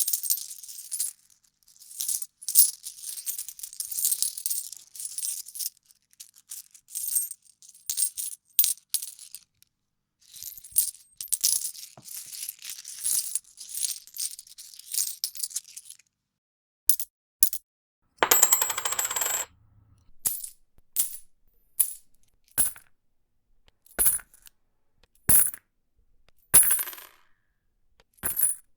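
A run of coin sound effects: coins jingling and clinking together in busy clusters for about the first half, then a short dense clatter, then single coin clinks about once a second.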